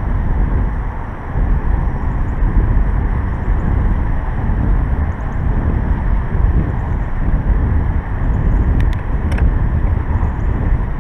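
Wind buffeting the microphone outdoors, a loud, uneven low rumble, with a couple of sharp clicks about nine seconds in.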